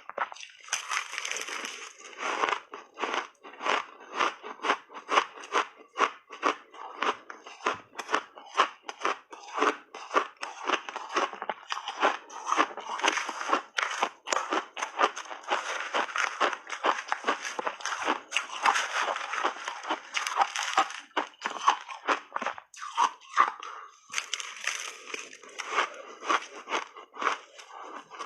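Close-up crunching and chewing of frozen blueberry shaved ice dusted with milk powder, taken in big bites: dense, irregular, brittle crunches with a few short pauses.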